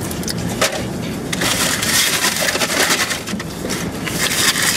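Fast-food bags and wrappers being rustled and crumpled as leftover food is packed away: a dense crinkling crackle that gets louder about a second and a half in.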